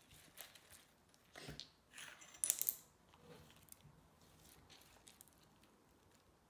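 Homemade green slime being kneaded and stretched by hand, giving a few short wet clicks and squelches; the loudest is a sharp crackle about two and a half seconds in, and it goes quieter after that.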